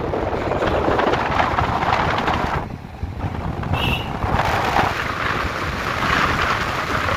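Wind rushing and buffeting over the microphone from a moving vehicle, mixed with road noise, easing briefly about three seconds in; a short high tone sounds just before the four-second mark.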